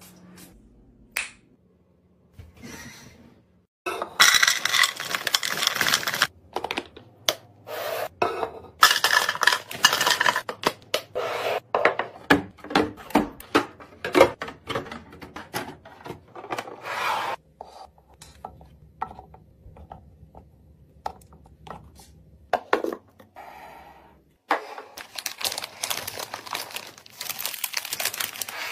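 Restocking handling sounds: aluminium drink cans clinking and sliding as they are set into a clear plastic organiser, a series of short knocks and rubs, and near the end snack bags crinkling as they are slotted into a plastic bin.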